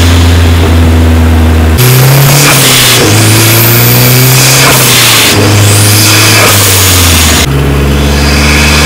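A Mazda's engine and exhaust under way, picked up by a microphone mounted at the exhaust. The note holds steady, then steps up and down in pitch several times as the revs change, with a rising rev in the middle. It is way too loud for the mic's setting.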